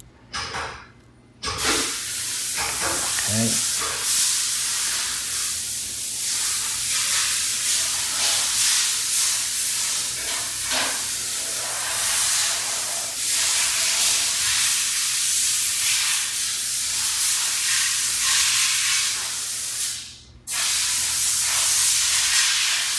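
A steady, loud hiss of rushing noise that starts suddenly about a second and a half in and cuts out for a moment near the end before resuming.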